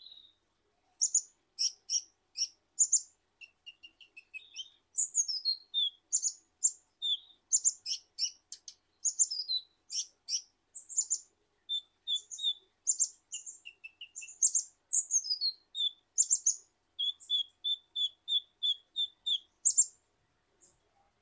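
Male Van Hasselt's sunbird (kolibri ninja) singing: a long run of fast, high chirps and twitters starting about a second in, with a string of evenly spaced notes near the end before it stops.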